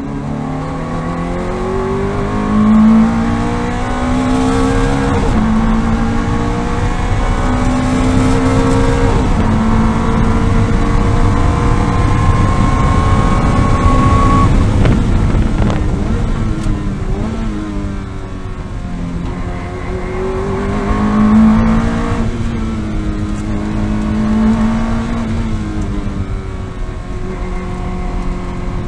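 Ferrari F430 Challenge's V8, heard from inside the cockpit, accelerating hard down a straight with several quick upshifts, then dropping in pitch through downshifts under braking. It pulls up again out of the corner, and road and wind noise run underneath throughout.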